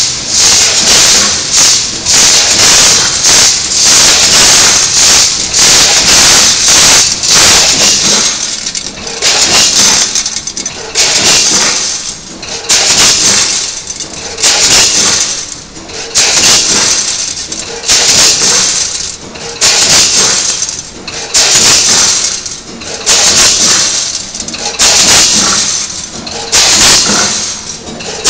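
Popcorn packing machine with a multihead weigher running: a loud hissing, rattling rush that is almost continuous for the first several seconds, then repeats in pulses about every two seconds as the machine cycles.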